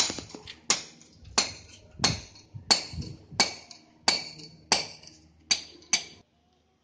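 Hammer blows on a steel chisel or bar driven into paving: about ten sharp metallic clinks, each ringing briefly, at an even pace of roughly one every 0.7 s. The blows stop shortly before the end.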